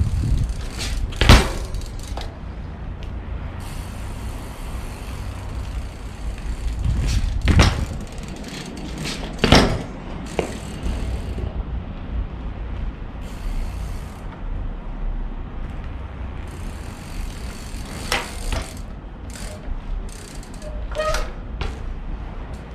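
Scott Gambler downhill mountain bike being worked by hand to show its suspension and brakes: four sharp knocks, spread out, as the bike is bounced and braked, with smaller clicks and rattles of the bike's parts over a low rumble.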